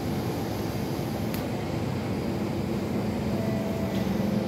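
SMRT C651 train standing at the platform with its doors open: a steady low hum, with a brief click about a second in.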